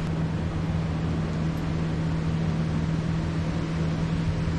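Steady low hum under an even hiss, a continuous mechanical background drone that does not change.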